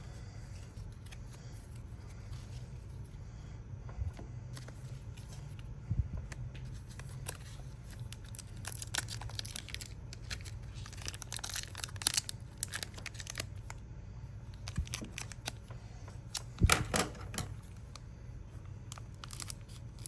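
Foil wrapper of a Pokémon card booster pack being torn open and crinkled by hand, in scattered crackles and short rips, with a sharper rip or knock about 17 seconds in; the pack is not easy to open. A low steady hum runs underneath.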